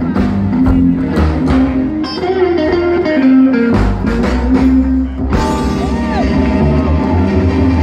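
Rockabilly band playing live with electric guitar, upright bass and drum kit, on a steady beat. About five seconds in, the playing gives way to a long held chord as crowd noise rises.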